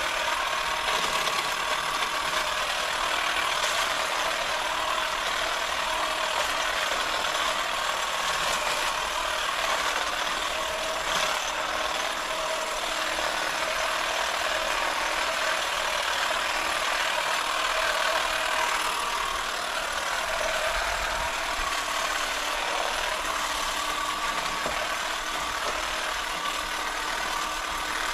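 Pole hedge trimmer running steadily with a constant motor whine as it cuts into a bamboo clump.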